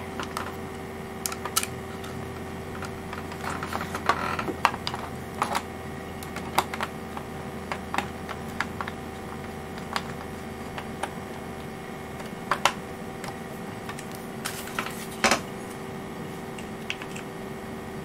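Scattered small clicks and taps at irregular intervals, from hands handling tiny screws and a clear plastic single-board-computer case, over a steady electrical hum.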